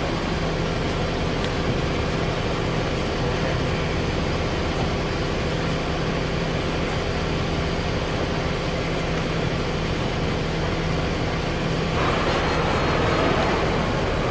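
Steady hum of running shop machinery around a horizontal machining center, with a few constant tones under an even noise. About twelve seconds in, a louder hiss joins.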